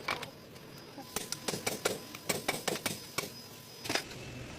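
Hammer striking a driveshaft universal joint during its replacement: about a dozen sharp knocks, in quick irregular groups.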